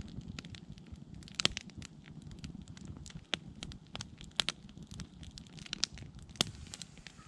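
Small freshly lit campfire of split kindling crackling, with irregular sharp pops scattered through.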